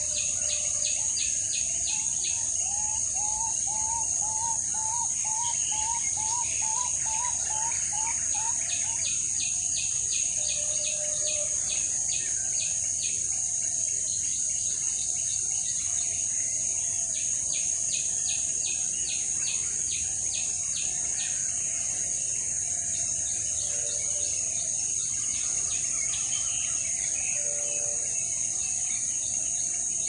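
Steady high-pitched insect drone, with wild birds calling over it: runs of quick high chirps, three or four a second, come and go several times, and a lower short rising note repeats about twice a second for several seconds near the start.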